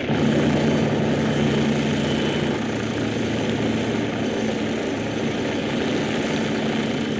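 Helicopter hovering: steady engine and rotor noise with a low, even hum.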